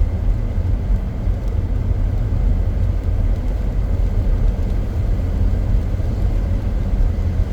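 Steady low rumble of a car's engine and tyre noise, heard inside the cabin while driving.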